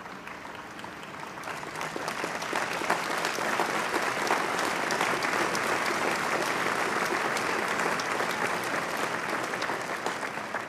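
A large audience applauding. The clapping builds up over the first couple of seconds, holds steady, then dies away near the end.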